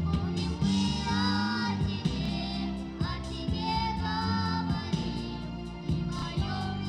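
A song sung by a high solo voice over instrumental accompaniment, the melody moving in phrases of a second or two.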